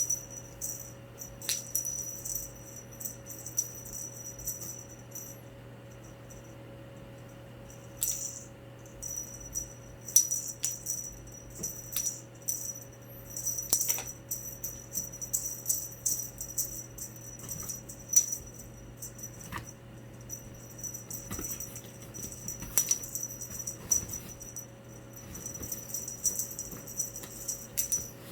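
Cat wand toy being jiggled and shaken, a high jingling rattle that comes in irregular bursts a few seconds long with short pauses between them.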